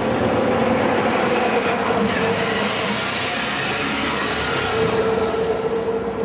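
Motor vehicle running steadily: continuous engine and road noise with a steady hum throughout.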